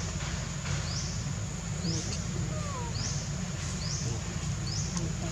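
Outdoor ambience: a small high chirp that rises in pitch repeats about once a second over a steady low rumble, with a short falling whistle near the middle.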